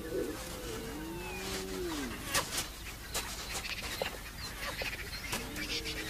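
Spotted hyena pups calling as they tussle: three low calls that rise and then fall in pitch, each about a second long, with sharp scuffling clicks in between.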